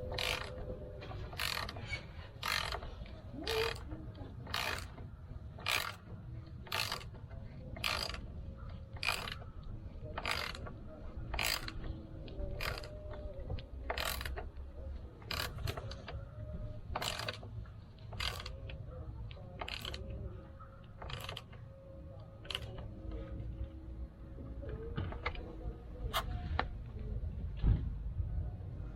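Ratchet wrench clicking in short strokes, about one a second and sparser near the end, as the oil drain plug is worked.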